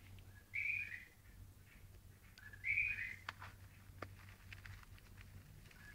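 A bulbul giving a short whistled call twice, about two seconds apart, with a few light clicks in between over a steady low hum.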